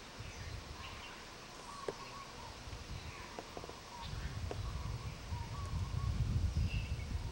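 Birds chirping and calling in short notes, with a few sharp clicks. A low rumble comes in about halfway through.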